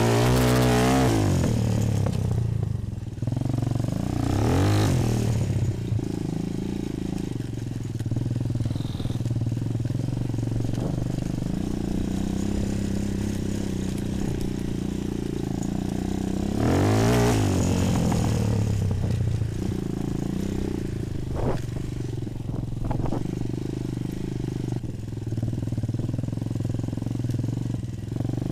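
Bashan 250 quad's single-cylinder four-stroke engine running while riding over rough dirt tracks. It revs up and drops back with the throttle about a second in, again near five seconds and again near seventeen seconds, with a couple of sharp knocks about two-thirds of the way through.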